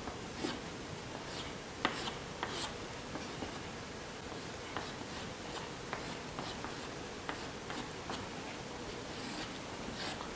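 Chalk drawing on a blackboard: irregular light taps and short scratches, over a faint steady hum.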